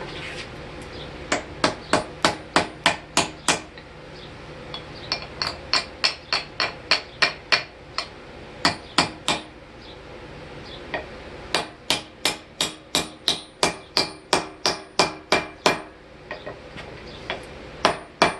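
Hand hammer striking steel on an anvil in runs of quick blows, about three a second, with short pauses between the runs and a metallic ring hanging after the strikes.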